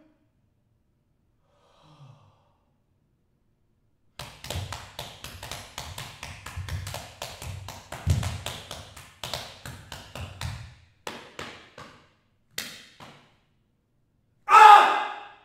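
Body percussion: fists drumming on a bare chest in a fast run of thuds, starting about four seconds in after near silence and thinning to a few separate strikes. Near the end comes a short, loud vocal cry, the loudest sound.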